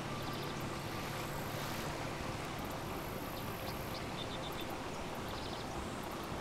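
Steady outdoor background noise, with a few faint, short, high-pitched ticks or chirps near the start and again around four to five seconds in.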